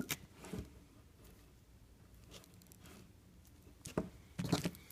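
F-connector fitting being worked onto the stripped end of RG6 quad-shield coax: a sharp click at the start and another about half a second in, then a cluster of short clicks and rustles about four seconds in.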